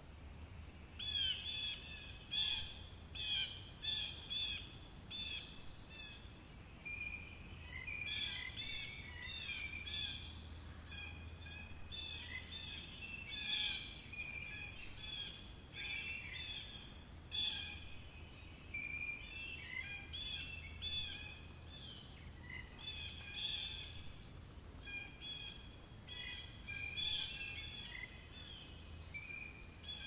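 Several birds calling and chirping together in a busy, overlapping chorus of short repeated notes, over a faint steady low hum.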